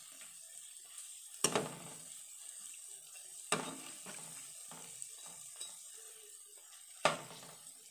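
Cabbage pakoras deep-frying in hot oil with a steady sizzle, while a perforated metal slotted spoon turns them over. The spoon knocks sharply against the pan three times.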